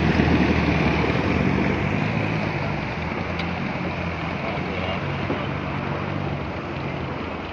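Open-top jeep's engine running and water churning as it drives through a shallow, muddy river crossing, the sound slowly fading as it pulls away.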